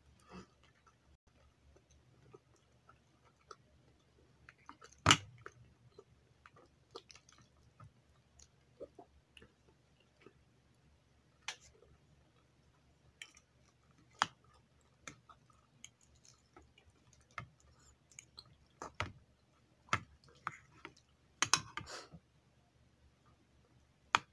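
Close-up chewing of chicken adobo, with scattered clicks of a metal spoon and fork against the bowls. The sharpest click comes about five seconds in.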